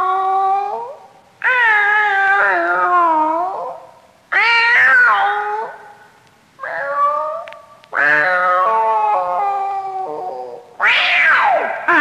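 Cats caterwauling: a string of long, wavering yowls one after another with short gaps between.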